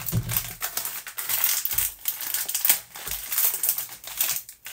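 Plastic wrapper of a digestive biscuit packet crinkling and crackling as it is handled and torn open, with a few dull low thumps in between.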